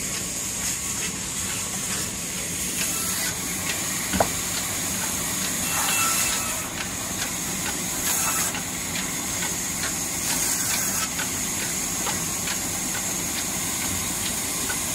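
Belt-driven vertical band saw running and cutting through log wood, a steady loud hiss with a faint regular beat from the old diesel engine that drives it. A single sharp knock about four seconds in.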